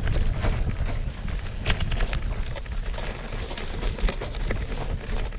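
A road bicycle rattling over bumpy, rough ground, with a steady low rumble and scattered sharp clicks and clatters from the frame and parts.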